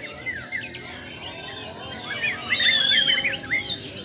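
White-rumped shamas singing: a quick run of whistled chirps, sweeps and trills, loudest with a held high whistle about two and a half seconds in.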